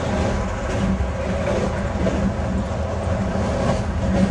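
Steady running rumble of a moving passenger train, heard from inside a sleeper compartment.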